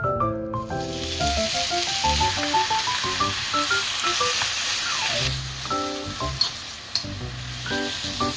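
Ground beef and chopped vegetable dumpling filling sizzling as it is stir-fried in an oiled pan and turned with a wooden spatula, over background music. The sizzle starts about half a second in and eases about five seconds in.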